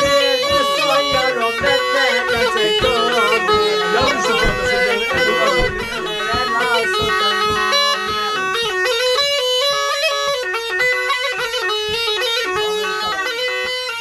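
Tulum, the Black Sea bagpipe, playing a fast, trilling horon-style melody, with a regular beat underneath that stops about six seconds in.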